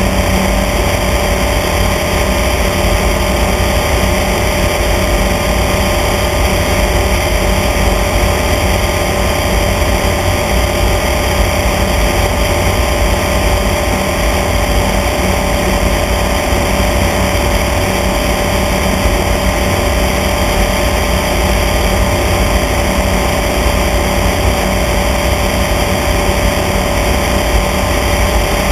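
Small airplane's engine and propeller running steadily in level flight: a loud, unchanging drone with a steady hum over a low rumble.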